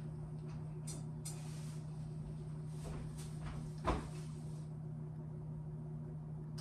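Quiet household handling sounds: a few short clicks and rustles, and a single sharp knock nearly four seconds in, over a steady low hum.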